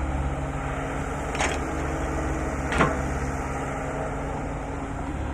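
Excavator's diesel engine running steadily, with two sharp metallic knocks about a second and a half apart.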